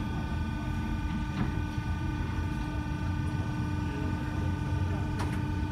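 Steady machine hum: a low rumble with several steady whining tones over it, and two faint clicks, one about a second and a half in and one near the end.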